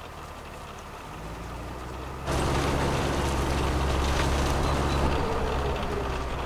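Farm tractor engine running steadily as it mows a hay field, setting in suddenly and loudly about two seconds in after a fainter low hum.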